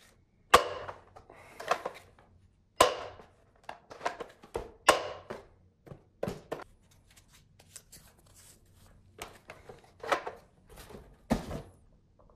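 Hard plastic clacks and knocks from a toy Captain America shield dart blaster being handled and loaded with foam darts: about a dozen sharp, irregular strokes, the loudest about half a second in.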